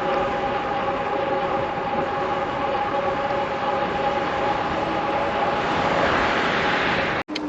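Electric fat bike under way: the steady whine of its rear hub motor over rushing tyre and wind noise. The sound cuts off abruptly near the end.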